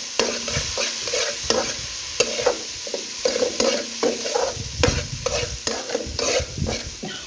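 Fresh seasoning frying in hot oil in a pot: a steady sizzle while it is stirred, with repeated scraping strokes and sharp knocks of the stirring utensil against the pot.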